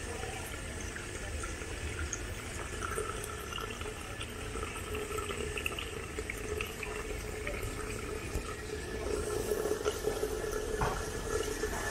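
Water running, over a steady low rumble and a held hum that grows stronger in the second half.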